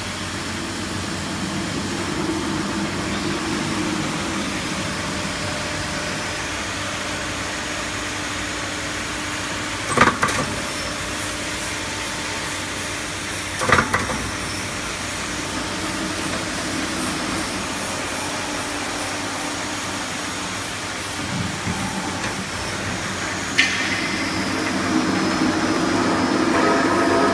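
Two-in-one light keel roll forming machine running steadily, its motor and chain-driven forming rolls working steel strip, with two sharp knocks about ten and fourteen seconds in. A high whine joins near the end.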